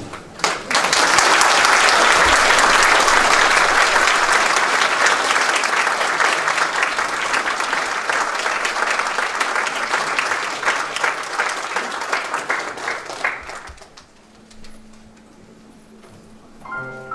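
Audience applauding. The applause starts about half a second in and dies away after about thirteen seconds. Near the end a piano starts the next piece.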